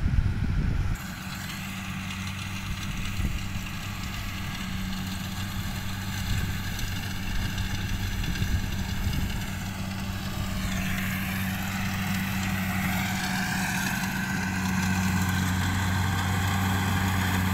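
Kubota DC70 rice combine harvester's diesel engine running steadily as it cuts rice, growing louder over the second half as it draws closer. Wind buffets the microphone during the first second.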